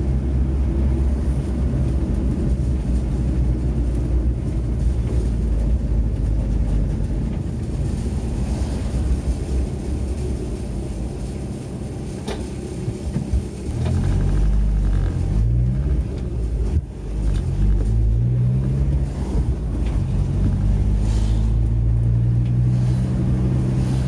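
VW T4 Transporter van's engine and road noise, heard inside the cab while driving. The engine runs steadily, eases off around the middle, then picks up again from about two-thirds of the way in, rising in pitch several times as it goes up through the gears before settling into a steady cruise.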